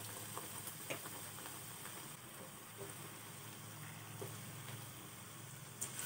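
Batter-coated spinach leaves deep-frying in hot oil in a pan: a faint, steady sizzle with a few small pops.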